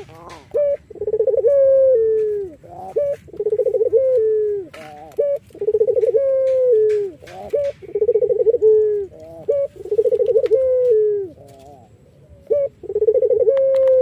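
A Barbary dove of the 'puter Irak' strain cooing close by, about six phrases roughly every two seconds. Each phrase opens with a quick stuttering trill and ends on a drawn-out note that falls in pitch, with short notes in between.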